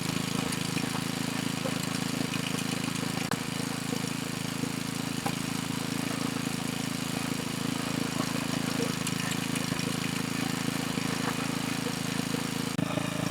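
Small gas engine of a belt-driven hydraulic log splitter running steadily, with a few faint clicks.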